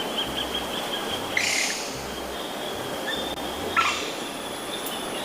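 Water running steadily as a plastic toy animal is rinsed clean, with two brief splashing bursts, about a second and a half in and near four seconds in.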